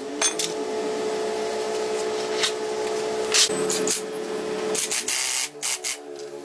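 Small electric power tool motor running with a steady whine, over scattered clicks and knocks of metal work. About five seconds in the whine drops to a lower pitch.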